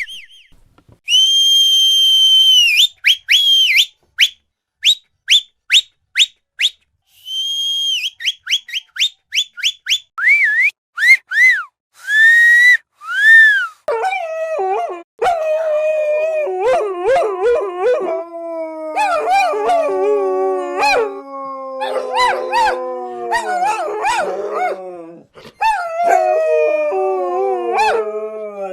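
High whistle-like squeaks, two long held tones and runs of short quick pips, then a few rising-and-falling whines. From about halfway, several dogs howl together, their long overlapping calls sliding slowly down in pitch.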